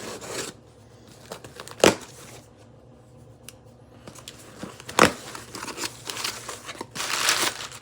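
A cardboard shipping box being opened by hand, with packing material rustling and crinkling, louder in the second half. Two sharp knocks, about two and five seconds in.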